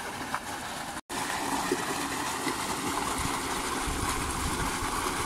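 Water gushing from a solar tubewell's outlet pipe and splashing steadily into a concrete tank. It breaks off for an instant about a second in, then comes back a little louder, with a low rumble underneath in the second half.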